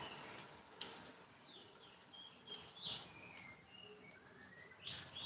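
Faint bird chirps, short high calls with a small rising whistle near the end, over a few light clicks.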